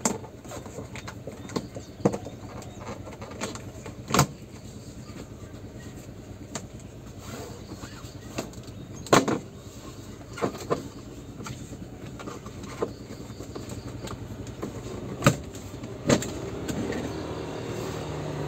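Plastic A-pillar trim of a 2012 Toyota Avanza being pulled off by hand: irregular sharp clicks and knocks as the clips let go and the panel is worked loose, the loudest about 4, 9 and 15 seconds in, over a low steady hum.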